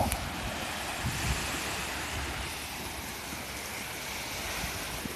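Ocean surf breaking and washing up the beach as a steady hiss, with wind buffeting the microphone in a low rumble.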